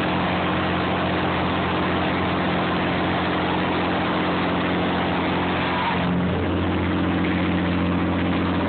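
Clam boat's engine running steadily: a low hum under a loud, even rush of noise. About six seconds in the rush eases and the low hum grows stronger.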